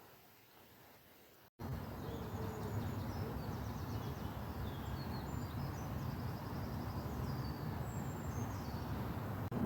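Almost nothing for the first second and a half, then, after a sudden cut, small birds calling and chirping over a steady low rushing background.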